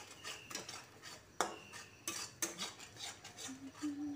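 A spatula scraping and clinking against a steel kadhai as a thick masala paste is stirred and fried, in irregular strokes about two a second.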